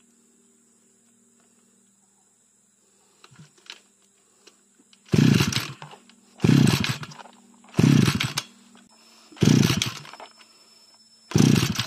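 Stihl FR 3000 backpack brush cutter's two-stroke engine being pull-started five times with the choke on, after a few light clicks. Each yank of the recoil starter cranks the engine briefly, but it does not catch: after nine months in storage the engine will not start.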